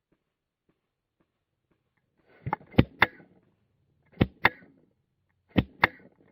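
Paintball marker firing quick shots, starting about two seconds in: a group of three, then two pairs about a second and a half apart.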